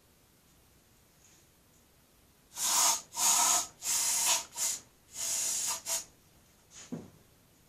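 Aerosol can of starter fluid hissing in a quick series of short spray bursts into the lawn tractor's engine, which has not yet fired.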